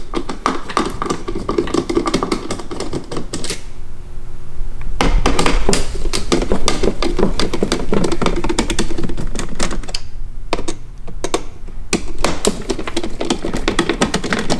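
Hand screwdriver backing Torx T20 screws out of a plastic door-panel speaker mount: a fast run of clicks, broken by two short pauses, about 4 s and 10 s in.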